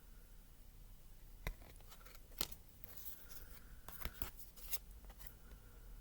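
Tarot cards and their card box being handled: a scatter of light taps and clicks of card stock, with a few sharper knocks.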